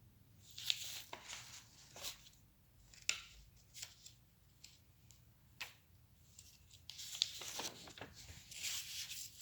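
Light handling noises close to the microphone: scattered short rustles and clicks, like paper being moved. They become denser near the end.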